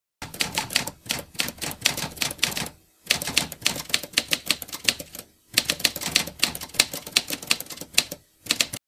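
Typing sound effect: rapid key clacks in three runs of about two to three seconds each, with short pauses between them, as text is typed onto a title card.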